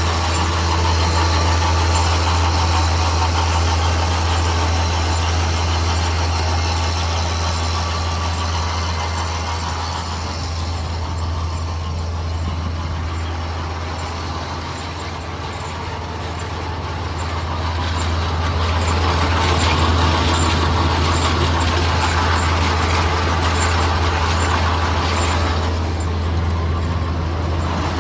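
Tractor engine running steadily with a John Deere 560M round baler in operation, a continuous heavy mechanical drone. It eases off a little about halfway through and builds back up a few seconds later.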